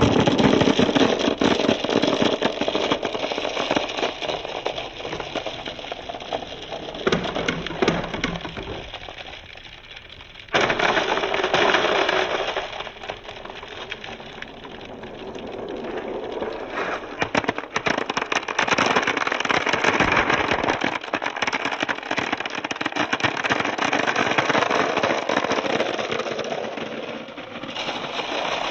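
Many glass marbles clattering and rolling against one another on a pegboard as balls crash into the packed rows: a dense stream of clicks that swells and fades, jumping louder again about ten seconds in.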